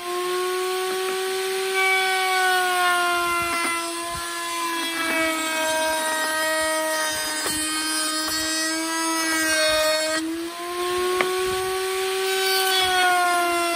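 Table-mounted router running with a steady high whine as a hardwood strip is fed past the bit to cut a rounded edge. The pitch sags slowly under the cut and climbs back, with a short dip and break a little after ten seconds. A few light knocks come from the wood on the bench.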